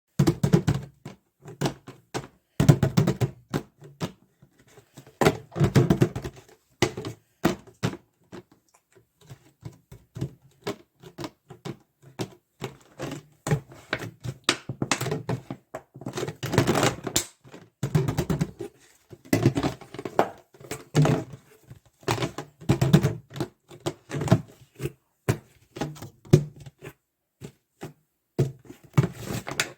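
Plastic bottle handled by hand: irregular crackling clicks and hollow knocks in quick clusters, with short pauses between them.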